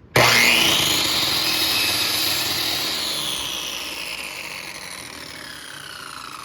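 Power saw switched on, its motor whine rising sharply as it spins up, then falling slowly in pitch and loudness as the blade winds down.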